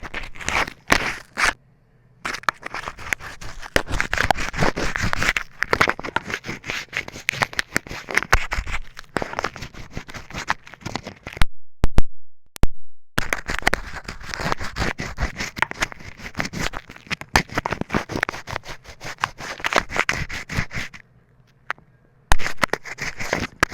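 Crayons and a glue stick being rubbed and scraped close up, a dense crackly scratching made of many small clicks, in long stretches broken by three short pauses.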